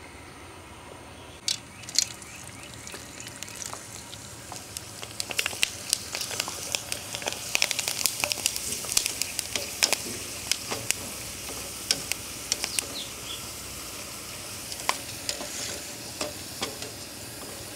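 Sun-dried, buttermilk-cured gourd slices (baluka) deep-frying in hot oil: a steady sizzle with dense crackling and popping, busiest in the middle.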